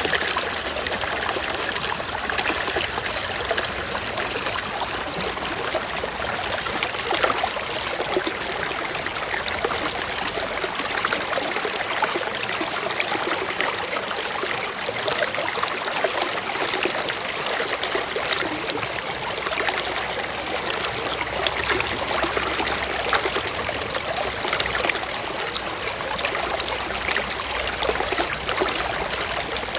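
Stream water flowing steadily: a constant rushing with many small splashes running through it.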